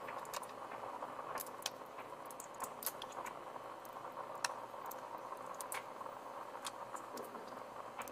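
Plastic building-block parts of a toy robot car clicking and rattling as they are handled and pressed together, a wheel going onto its axle: light, irregular clicks over a steady background hiss.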